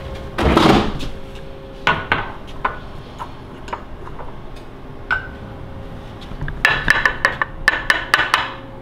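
Glass spice shaker with a metal lid shaken over a bowl of beaten eggs: a quick run of sharp clinks and taps near the end, after a few scattered knocks of the shaker and bowl being handled.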